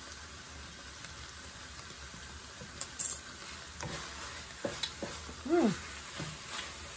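A wooden spatula stirs and scrapes thick, cooked-down pineapple jam in a stainless steel wok, over a faint steady sizzle from the jam on the heat. Sharper scrapes and knocks against the pan come about three seconds in and again between about four and six seconds.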